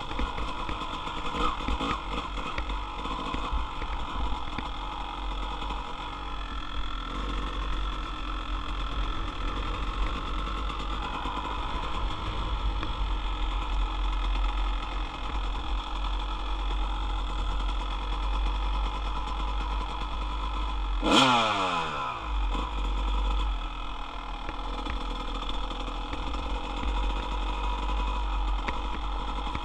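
Two-stroke dirt bike engine running while being ridden, with wind rumbling on the microphone. About two-thirds of the way through, one sharp rev drops away quickly; this is the loudest moment.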